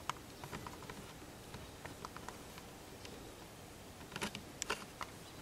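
Faint, scattered light clicks and taps of hands handling a cord and small parts, with a short run of sharper clicks about four seconds in.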